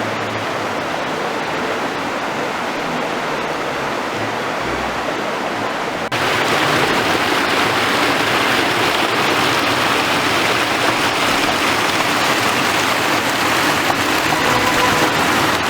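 Waterfall and mountain stream rushing steadily. About six seconds in, the rush abruptly becomes louder and brighter.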